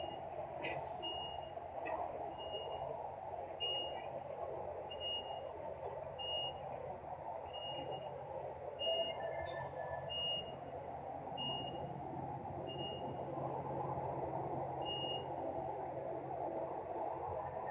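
A vehicle's reversing alarm beeping about once every 1.3 seconds, stopping about fifteen seconds in. Underneath is a steady industrial machinery drone with a few clanks.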